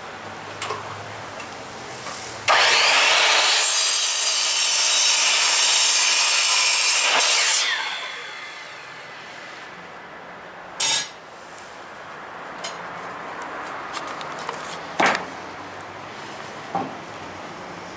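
Electric drop saw cutting through a treated-pine sleeper: the saw starts suddenly about two and a half seconds in, cuts for about five seconds, then winds down. A few sharp knocks follow later.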